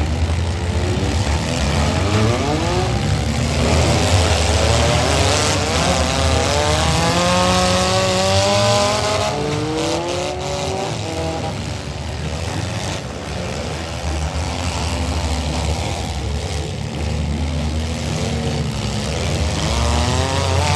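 Several compact cars' engines running and revving hard at once in a demolition derby, engine pitch climbing and falling over a steady low rumble, strongest in the first half.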